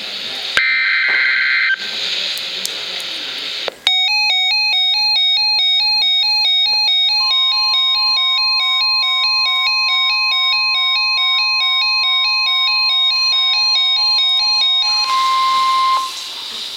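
Emergency Alert System broadcast tones over weather radio. It opens with a short screeching two-tone SAME data burst, then a moment of static hiss. Next comes a rapidly alternating electronic alarm pattern, which the steady 1050 Hz warning alarm tone joins partway through and briefly outlasts, signalling an incoming warning.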